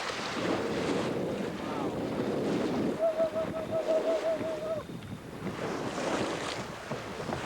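Wind buffeting the microphone over the rush of water along a sailboat's hull and bow wave at sea. Around the middle, a warbling whistle-like tone wavers up and down for about two seconds.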